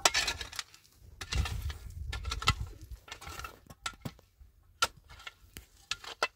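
Scattered sharp clicks and knocks of small objects being handled, with a low rumble between about one and three seconds in.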